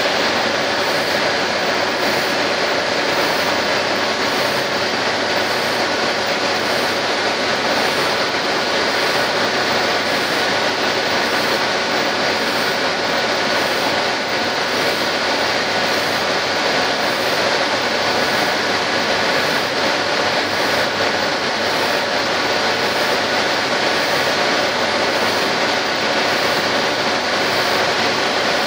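HB30K superfinishing tool running against a turning screw-pump rotor on a lathe: a steady mechanical hiss and hum with faint steady tones, and a faint high pulse about once a second.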